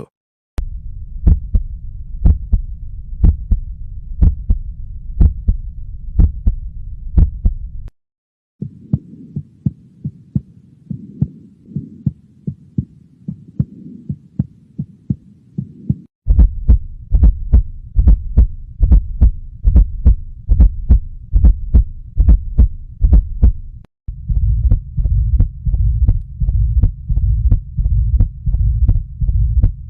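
Heart sounds heard through a stethoscope: a series of four different auscultation recordings of about eight seconds each, cut together with brief breaks. Each recording holds a steady run of heartbeats, roughly one to two a second, over a low hum.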